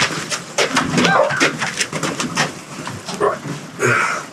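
Knocks and clatter from a heavy, awkward object being shifted into place by hand, with short bird-like calls about a second in and again near the end.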